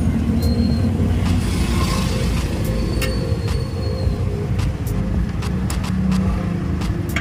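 Steady low rumble of background noise, with scattered light clicks and a brief hiss about two seconds in.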